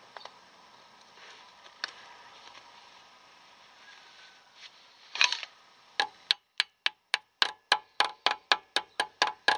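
Hammer tapping the metal grease cap onto the rear wheel hub of a VW Golf Mk3 drum brake: quick, even light knocks, about four a second, starting about six seconds in. A brief clatter comes just before them.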